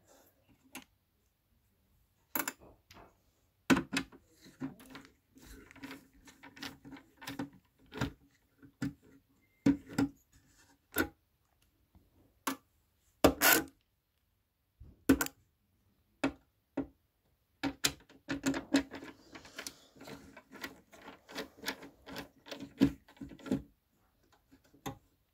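Screwdriver turning out the mounting screws of a speaker woofer in a plastic cabinet: irregular clicks, knocks and scrapes of metal on metal and plastic, coming in clusters with short pauses.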